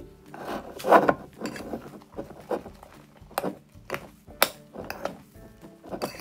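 A metal spoon stirring foamy fluffy slime made of shaving cream and glue in a ceramic bowl: repeated wet squishing strokes, with a few sharp clinks of the spoon against the bowl.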